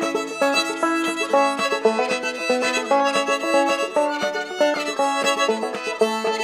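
Fiddle and clawhammer banjo playing an instrumental break of an old-time tune in the key of A. The bowed fiddle is out front over the plucked notes of a Nechville Atlas banjo.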